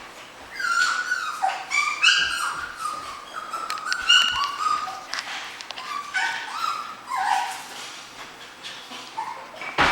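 Goldendoodle puppies yipping and whimpering as they play: a busy run of short high-pitched yips and whines that tails off after about seven seconds, then a single sharp knock at the very end.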